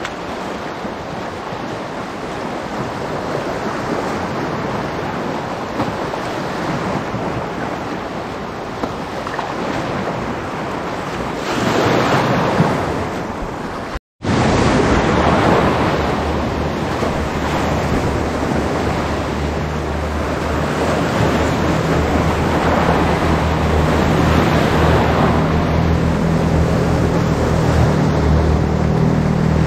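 Sea waves washing on a rocky shore, with wind buffeting the microphone. The sound cuts out completely for a moment about fourteen seconds in, and a low steady hum joins the surf in the second half.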